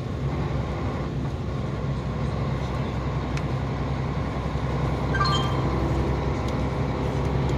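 KAMAZ truck's diesel engine and tyres droning steadily at cruising speed, heard from inside the cab.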